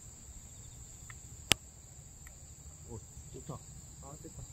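One sharp click of a mallet putter striking a golf ball, about a second and a half in. A steady high insect trill runs underneath.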